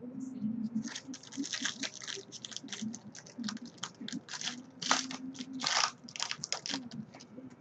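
Foil wrapper of a football trading card pack being torn open and crinkled as the cards are slid out: a quick run of crackling rips and rustles.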